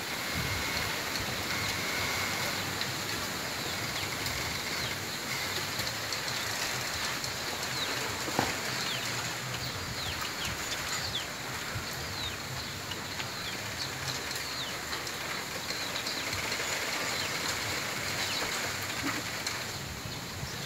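Wind rustling through a bamboo grove in a steady hiss of leaves. Many short, high squeaks come and go throughout, and there is one sharp crack about eight seconds in.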